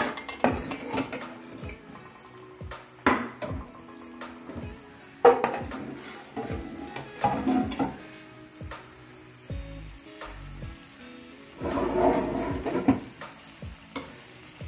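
Metal spoon scooping and stirring thick meat and bitter gourd curry, scraping against a pot and a glass serving dish, with a series of sharp clinks over a low sizzle.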